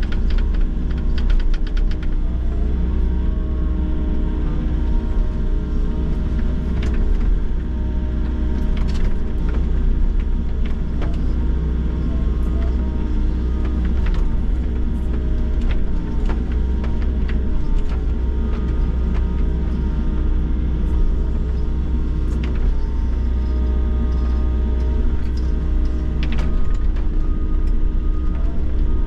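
Volvo excavator's diesel engine running steadily, heard from inside the operator's cab, with a deep rumble and steady machine tones. Short sharp clicks and knocks come now and then as the machine works.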